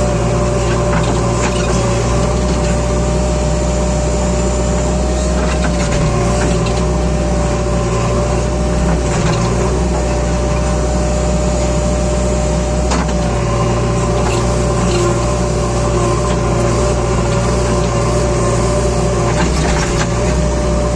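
Heavy diesel engine running steadily, with a constant whine over the low drone and a few faint knocks.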